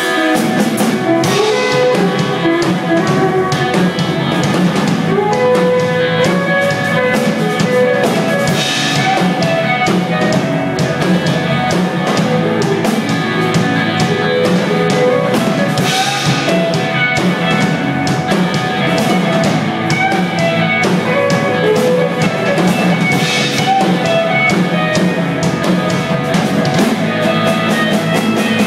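Live rock band playing loud: electric guitars over a full drum kit with crashing cymbals.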